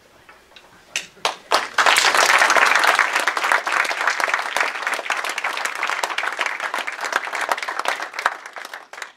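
Small audience applauding: a few first claps about a second in, then steady clapping that gradually thins out and stops near the end.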